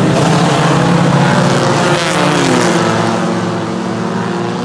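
A pack of circle-track race cars passing at speed, several engines running hard at once. Some engine notes slide down in pitch between about two and three seconds in as cars go by.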